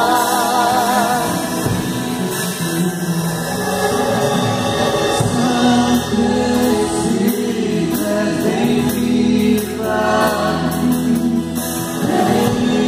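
A woman sings a Portuguese gospel song into a microphone, holding notes with vibrato, over a sustained low accompaniment.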